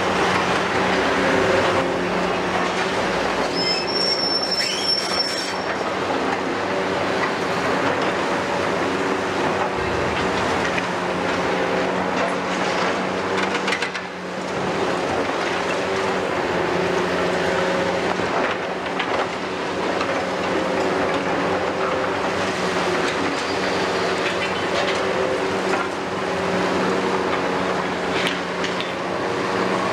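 Demolition excavators, a Kiesel KMC 600 multi carrier and a CAT 320F, working with their diesel engines and hydraulics running steadily under load. Their grapple and shear crunch, grind and scrape on concrete rubble and steel, with a brief high metallic squeal about four seconds in.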